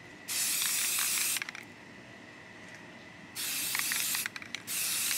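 Aerosol spray paint can let off in three short hissing bursts, each about a second long, the last two close together.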